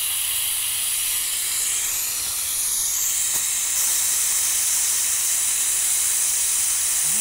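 Steam hissing steadily out of an Afghan kazan pressure cooker as its weight valve is lifted open, a high hiss that grows slightly louder about four seconds in. This is a manual quick release of the cooker's pressure after cooking, rather than letting it drop on its own.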